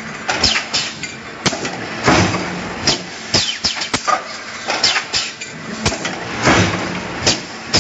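Automated metal-stamping line for motor casings running: the press and its pneumatic transfer cylinders clack and knock sharply, about twice a second at an uneven pace, over a steady machine hum.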